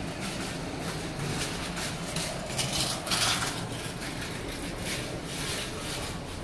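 Street ambience of a pedestrian shopping street: footsteps on brick paving and people passing over a steady low hum, with a brief louder noise about three seconds in.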